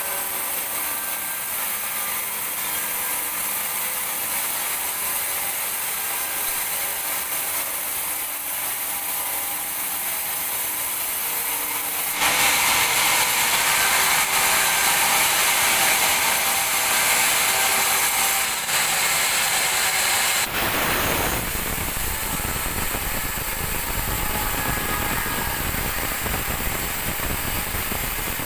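Sawmill band saw and log-carriage machinery running, with faint steady tones over a mechanical clatter. About twelve seconds in it turns louder and hissier for roughly eight seconds, then drops to a deeper rumble.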